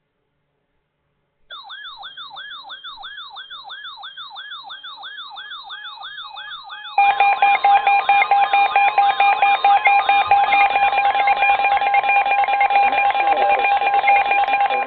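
Electronic emergency alert tones. About a second and a half in, a warbling siren-like tone starts, sweeping rapidly up and down. About seven seconds in, a much louder steady alert tone of several pitches joins it.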